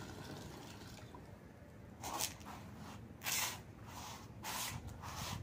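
A thin stream of water poured from a lota splashing down steadily, stopping about a second in as the pour ends. Several short, soft hissy sounds follow, spaced roughly half a second apart.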